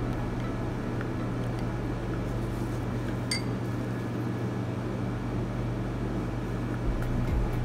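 Steady low hum with one light, ringing glass clink about three seconds in: a wooden stirring stick striking the side of a glass cup of juice.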